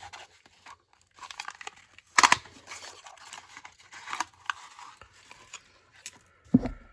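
Handling and opening a cardboard box of .38 Special cartridges: irregular crinkling and rustling of the packaging, with a sharp knock about two seconds in and a heavier thump near the end.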